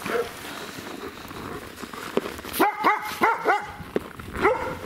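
Dog yapping: a quick run of several short, high yaps about two and a half seconds in, then one more near the end.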